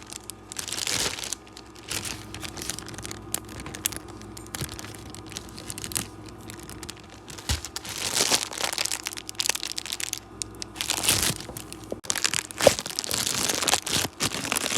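Slime being squished and worked by hand, making irregular crackling, crinkling noises with scattered clicks; the noise thickens about eight seconds in and again from about eleven seconds on.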